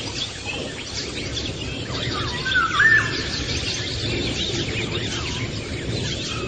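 Several birds chirping and singing over a steady outdoor hiss of countryside ambience, with one louder whistled call rising and falling about two and a half seconds in.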